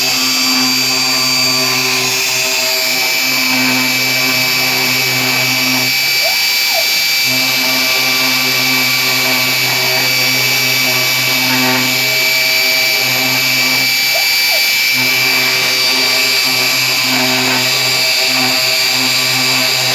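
CNC 3040 desktop router engraving letters into MDF: the spindle runs with a steady high whine while the stepper motors hum underneath, their tones switching and stopping every second or two as the axes move.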